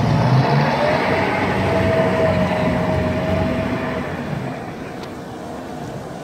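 Large outboard motors on a center-console boat running as it passes close and pulls away, with a steady whine from about one to four seconds in; the sound fades as the boat moves off.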